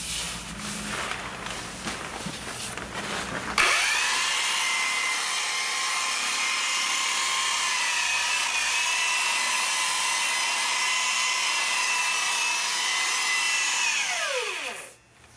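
Electric grinder-polisher with a soft sanding pad dry-sanding the cured epoxy deck of a surfboard at 120 grit. After a few seconds of irregular handling noises it is switched on about 3.5 s in and spins up to a steady whine. It runs evenly across the board, then is switched off near the end and winds down with a falling pitch.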